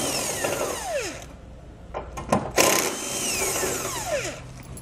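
Cordless drill turning a 16 mm socket on an extension to back out the bumper-beam bolts. It runs in two bursts of about two seconds each, and the motor whine falls away as it winds down after each. A few light metallic clicks come between the bursts.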